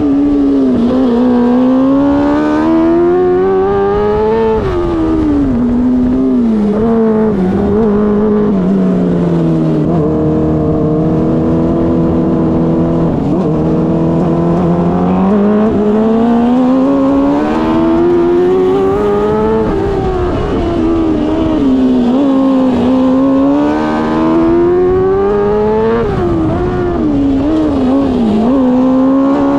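A 600cc micro sprint's motorcycle engine racing on a dirt oval, heard close. It revs up in long climbing pulls and backs off sharply every few seconds, with a lower, steadier stretch about halfway through.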